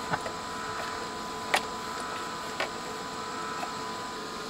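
Quiet bench background: a steady faint hiss with a thin steady tone, and two small clicks, the sharper one about a second and a half in and a smaller one about a second later.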